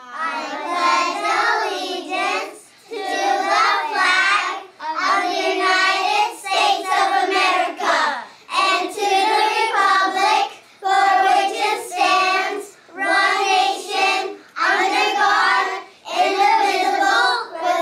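A class of young children reciting the Pledge of Allegiance together in unison, phrase by phrase, with short pauses between phrases.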